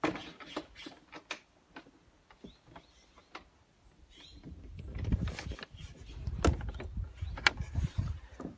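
Footsteps and scattered knocks on a wooden deck, with a low rumble building in the second half.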